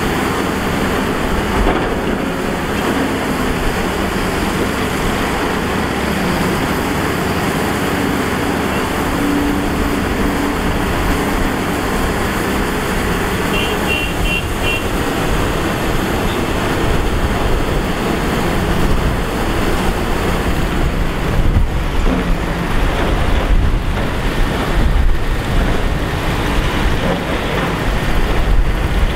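Matador Shantui ME315 excavator's diesel engine running under load as it digs and loads earth, a steady heavy drone that grows louder and rougher, with irregular knocks, in the last third.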